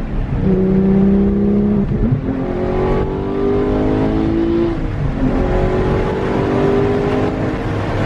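Porsche 911 GT3's naturally aspirated 4.0-litre flat-six accelerating through the gears of its manual gearbox, heard from inside the cabin: the engine note climbs in pitch, broken by upshifts about two and five seconds in.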